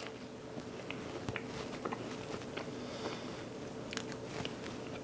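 Faint chewing of a bite of toast topped with baked beans: small crunches and mouth clicks, scattered through, over a steady faint hum.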